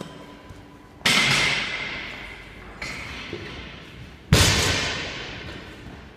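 Two loud heavy impacts about three seconds apart, each followed by a long echo in a large hall, with a lighter knock between them. The second is a 50 kg barbell loaded with bumper plates dropped onto the rubber gym floor.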